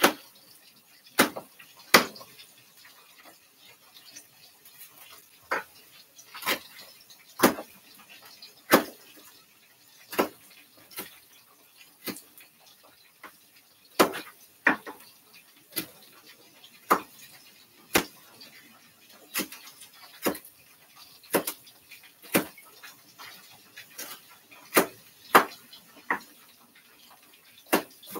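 Knife chopping baby bell peppers on a cutting board: sharp, separate knocks of the blade hitting the board, unevenly spaced at about one a second.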